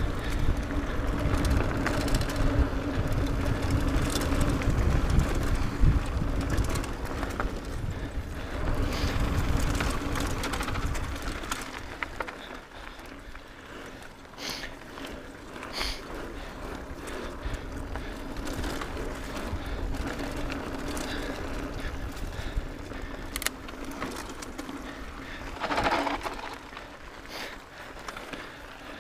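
Mountain bike riding fast down a dirt trail: a steady rumble of tyres on dirt and wind on the microphone, loud for about the first twelve seconds and then quieter, with scattered clicks and knocks from the bike over bumps.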